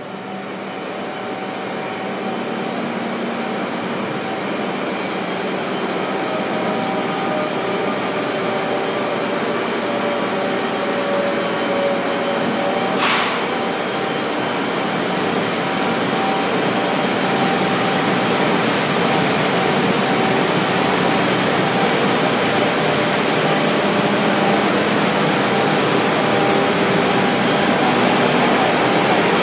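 Railcar mover's engine running as it travels along the rails through the unloading building, growing steadily louder as it approaches, over the constant drone of the unloading machinery. A short, sharp hiss about thirteen seconds in.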